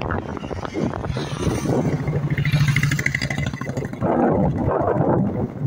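A motor vehicle passing on the road close by, its engine hum swelling to its loudest a little past the middle and then easing off.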